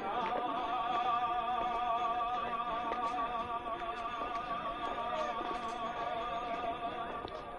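Music: a singer holds one long note with a wide vibrato, in an operatic style, for nearly the whole stretch, easing off near the end.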